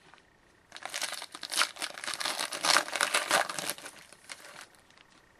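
Crinkly trading-card pack wrapper being handled and crumpled, a dense crackling that runs for about four seconds and fades near the end.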